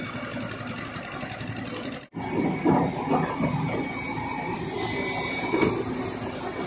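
Diesel engine of a JCB JS140 tracked excavator running under load as it works its boom and bucket, a steady fast rhythm at first. A brief dropout comes about two seconds in, after which the machine is louder and uneven, with several heavier knocks.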